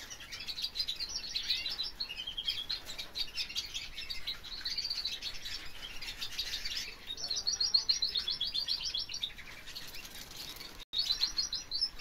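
Young Spanish timbrado canaries singing their early, still-forming song: a continuous high warbling broken by quick trills, with some notes already coming through clearly. There is a momentary drop-out near the end.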